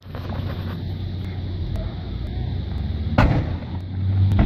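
One sharp bang about three seconds in, over a steady low rumble: something inside a burning RV blowing up.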